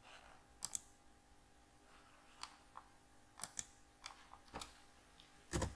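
Scattered computer mouse and keyboard clicks, about eight sharp ticks spread unevenly, with a louder, duller thump near the end, over a faint steady hum.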